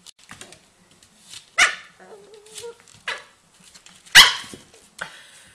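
A puppy barking at a lemon: two sharp barks, one about a second and a half in and a louder one about four seconds in, with softer short sounds from the dog between them.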